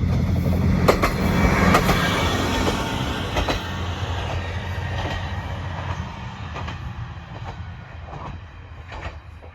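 Isumi 350-series diesel railcar running past, its engine droning low while the wheels clack over rail joints in a string of irregular clicks. The sound fades steadily as the railcar moves away.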